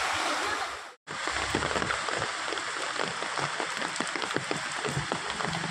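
Water rushing through a drain, cut off about a second in; then heavy rain falling on a flooded road, a steady hiss of many small drop splashes.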